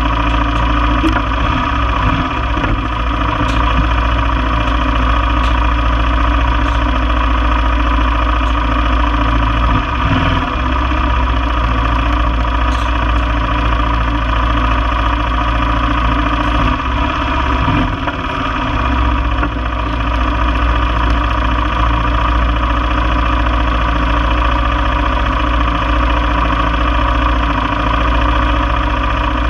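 1995 Honda Foreman four-wheeler's single-cylinder four-stroke engine idling steadily, close by.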